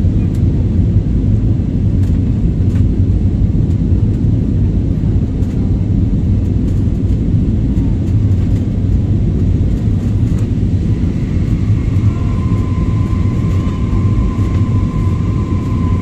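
Steady loud rumble inside a jet airliner's cabin during the climb after takeoff: engine and airflow noise, with faint light rattles. A steady high whine joins in about twelve seconds in.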